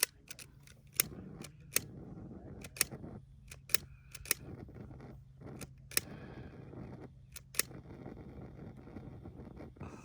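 Torch lighter's igniter clicking sharply again and again, about once a second at uneven intervals, over a steady low hum.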